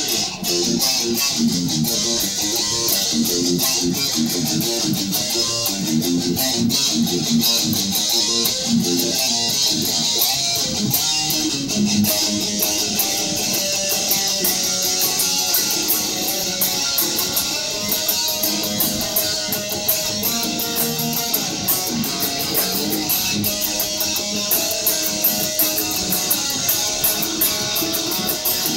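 Electric guitar playing a continuous instrumental jam, a steady stream of quickly picked and strummed notes with no singing.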